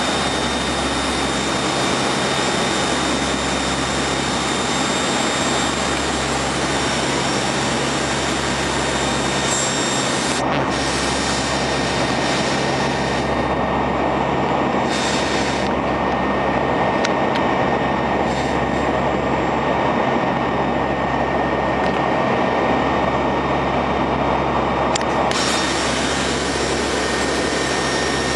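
Steady cockpit drone of a NOAA P-3 Orion's four turboprop engines and propellers in flight, with a constant high hum over a broad rushing noise. The upper hiss dulls for about ten seconds in the middle, then returns.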